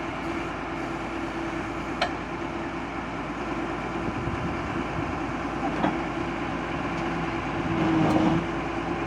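Excavator travelling on its tracks with a steady mechanical hum, two sharp clicks about two and six seconds in, and a louder stretch near the end. This is the abnormal noise the machine makes in travel.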